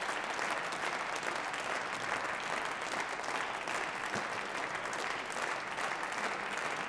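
Members of parliament applauding steadily at the close of a speech, many hands clapping in one continuous, even wash of sound.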